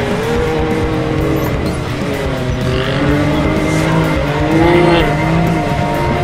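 Side-by-side UTV engine revving up and down, its pitch rising and falling several times, with music playing underneath.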